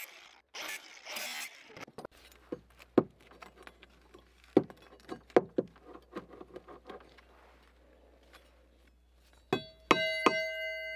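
A cordless angle grinder cuts saw-blade steel in short bursts and stops about a second and a half in. Scattered clinks and taps follow as the cut steel pieces are handled. Near the end the steel ulu blank, cut from a hydraulic-hose-cutting saw blade, is struck and rings with a clear, lasting metallic tone.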